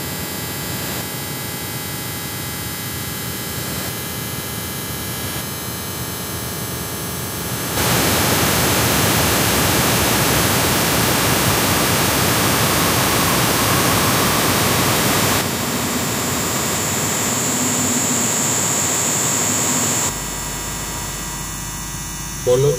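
Industrial noise music: a dense wall of static hiss that jumps louder about eight seconds in. A high steady whistle joins it midway, and the noise drops back shortly before the end.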